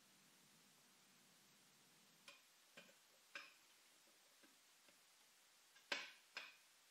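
Light metallic clicks of a disk adapter being handled and slotted into an aluminium adapter rack: a few faint clicks two to three seconds in, then two sharper clicks near the end, over near silence.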